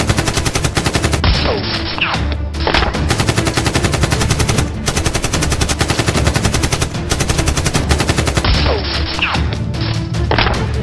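Rapid, continuous automatic-gunfire sound effects dubbed over toy Nerf blasters being fired, with background music beneath.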